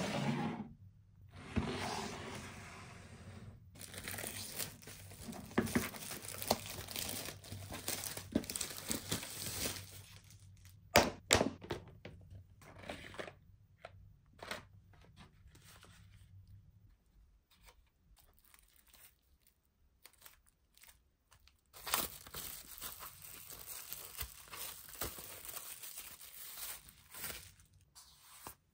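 Toy packaging being torn open and crinkled, with a couple of sharp knocks about eleven seconds in. The rustling dies down for several seconds in the middle, then starts again.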